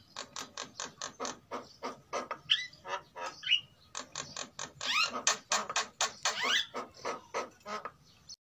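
Caged jalak kebo mynas calling: a rapid run of harsh, chattering notes, about three or four a second, with a few short rising whistles mixed in. The calling stops abruptly near the end.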